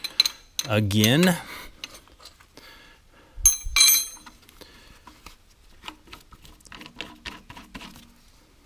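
A steel clank with a short metallic ring about three and a half seconds in, then light knocks and scrapes of steel on steel, as the machined post driver is test-fitted onto a square sign post.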